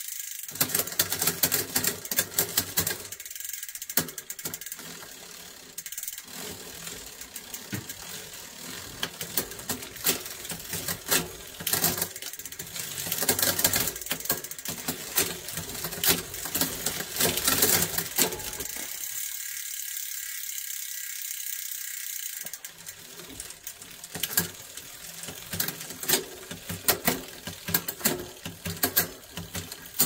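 Bicycle drivetrain turning in a workstand: the chain runs over the spinning rear cassette and through a Rotor hydraulic rear derailleur, with a rapid ratcheting click. The clicking thins out for a few seconds about two thirds of the way through.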